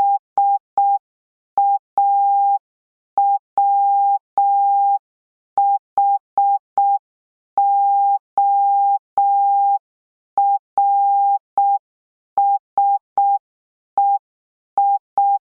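Morse code practice tone, one steady beep keyed on and off in short dots and long dashes with wide gaps between letters, spelling out S-A-W-H-O-R-S-E-S.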